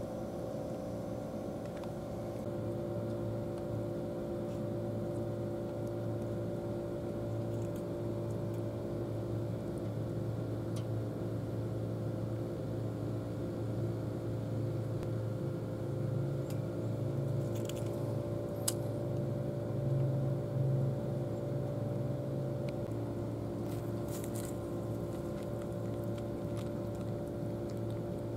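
A steady low mechanical hum made of several steady tones, like an engine or machine running without change. A few short, sharp clicks stand out in the second half.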